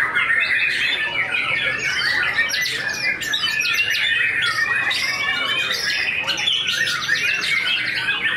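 White-rumped shama (murai batu) singing: a dense, unbroken stream of rapid trills, chirps and short whistled glides.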